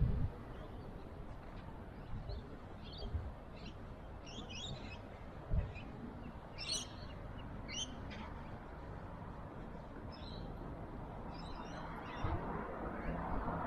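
Small birds chirping in short, scattered calls over a steady low outdoor rumble of wind and distant traffic. A broad rush of noise swells near the end.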